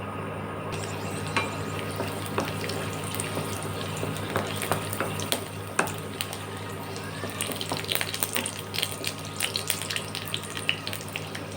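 Dried red chillies, garlic and ginger frying in hot oil in a kadai: a steady sizzle with short crackles and clicks that come more often in the second half, over a low steady hum.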